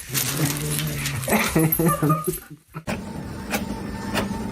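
A pet animal's drawn-out low vocal call lasting about a second, then several short broken calls. After a brief gap, a steady hum begins with a sharp tick roughly every two-thirds of a second.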